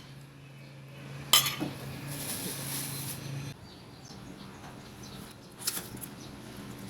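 Kitchen utensils clinking against a bowl while kinilaw is being mixed: a sharp clink about a second and a half in and another near the end, over a low steady hum that stops about halfway through.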